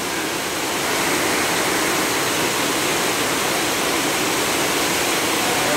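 Heavy rain pouring down: a loud, steady hiss with no let-up.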